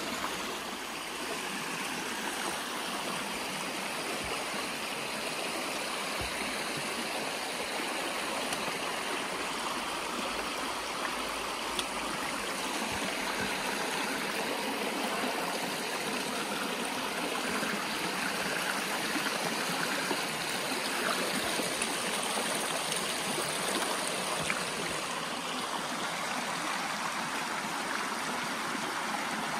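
Small rocky mountain creek rushing and splashing over stones in a steady wash of water, heard from right beside it.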